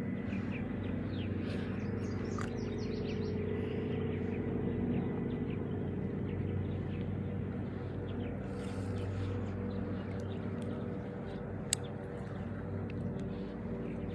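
Steady low mechanical hum, with small birds chirping over it and one sharp click about three-quarters of the way through.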